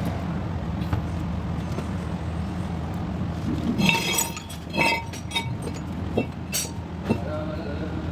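A handful of light, sharp clinks, clustered about four to five seconds in with a few more near the end, over a steady low hum.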